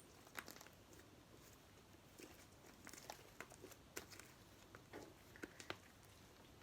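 Faint, scattered sticky clicks and small pops from a large homemade slime being handled, about a dozen spread over several seconds.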